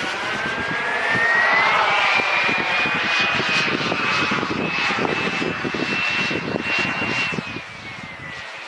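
Small gas-turbine engine of a model jet in flight, a high whine that climbs in pitch over the first couple of seconds, holds steady, then slides down and fades near the end.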